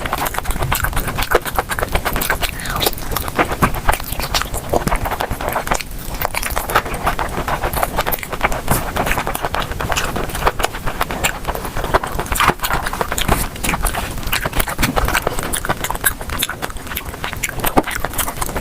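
Close-miked eating: continuous chewing and crunching, with many quick, irregular mouth clicks and crackles.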